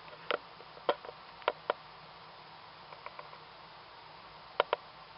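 Nile monitor swallowing a small rat: scattered short, sharp clicks from its jaws and the prey, several of them in close pairs, over a faint steady hiss.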